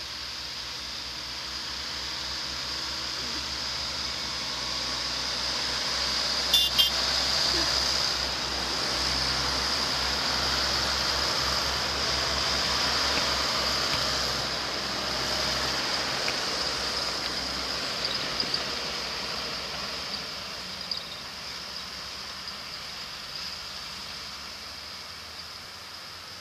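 Farm tractors and a JCB Fastrac with flail mowers mounted, driving past in convoy: engine and tyre noise swells to a peak about a third of the way in, then slowly fades as they pull away. A few sharp rattling clicks come about seven seconds in.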